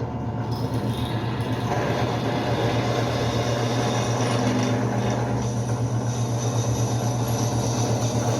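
Forte G FG009 benchtop drill press running with a steady low hum while its bit drills into a 2 mm steel plate.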